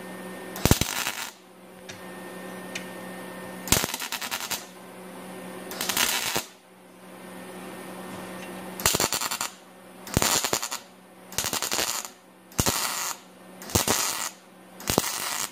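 Wire-feed (MIG) welder tack-welding thin sheet-steel patch panel pieces together: nine short bursts of crackling arc, each under a second, a second or so apart.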